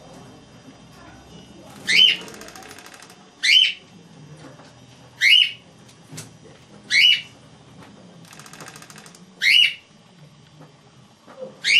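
Cockatiel calling: six loud, short, shrill calls, one about every two seconds.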